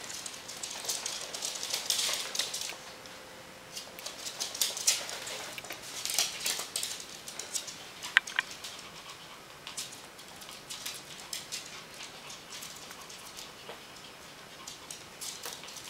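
Ferret's and Pomeranian's claws clicking and pattering on a hardwood floor as they run about, in quick irregular runs of taps with short lulls between. A single louder sharp click about eight seconds in.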